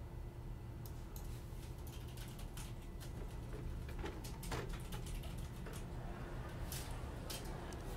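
Irregular light clicks of a computer keyboard being typed on, over a low steady hum.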